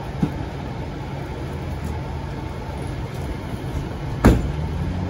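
A vehicle engine idling steadily with a low hum, with a small click just after the start and one loud, sharp knock about four seconds in.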